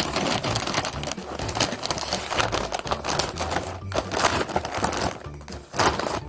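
Wrapping paper crinkling and rustling as it is folded around a gift, a dense, irregular run of crackles.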